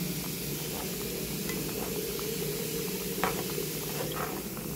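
A plastic spatula stirring whole hot peppers, onions and tomato paste simmering in oil in a pot, over a steady sizzle, with a few faint light scrapes and taps against the pan.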